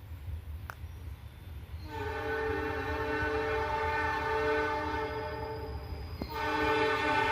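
Diesel locomotive horn sounding a long blast from about two seconds in, breaking off briefly near the end before a second long blast starts, over a low rumble.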